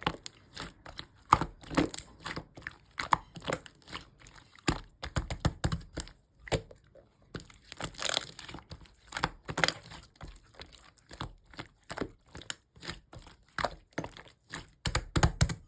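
Hands squeezing and pressing clear slime, giving a fast, irregular run of sharp clicks, pops and crackles.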